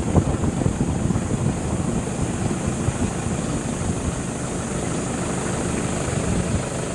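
Four-wheel-drive vehicle driving along, a steady low rumble of engine and road noise.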